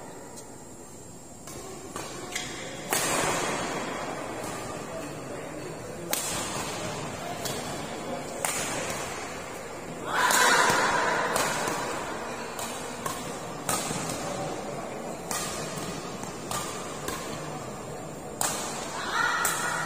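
Badminton rally: racket strikes on the shuttlecock about every second or so, echoing in a large hall, with voices and shouting that swell loudest about ten seconds in.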